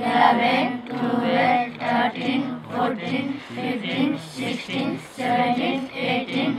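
A group of children and a woman counting aloud together in a sing-song chorus, one number after another in a steady rhythm.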